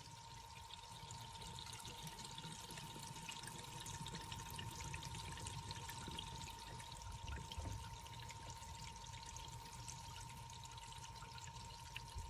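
Water trickling and pouring faintly in a pumpless, gravity-fed pet water fountain, with a thin steady high tone throughout.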